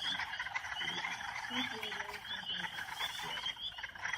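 Chorus of northern spring peepers: many frogs giving short, rising peeps, several a second and overlapping, over a dense background of calls.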